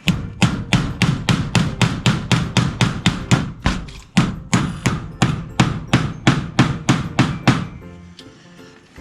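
Hammer driving nails with quick, even blows, several a second, stopping about seven and a half seconds in.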